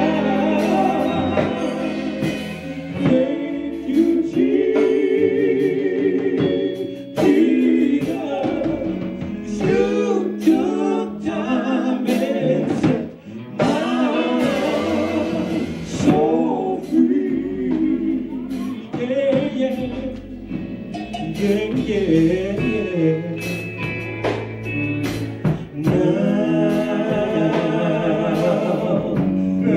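Male gospel quartet singing live, a lead voice over the group's sustained harmonies, with electric guitar accompaniment.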